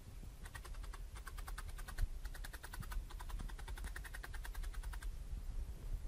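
A fast run of light, crisp ticks, about ten a second, from a barbed felting needle punching wool into a foam pad. The ticks start about half a second in, pause briefly near two seconds, and stop about five seconds in.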